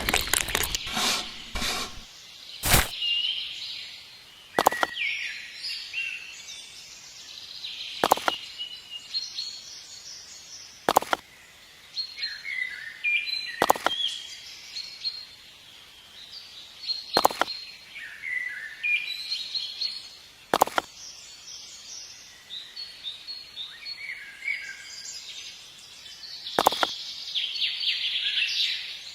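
Small birds chirping and twittering, with a sharp click or knock about every three seconds.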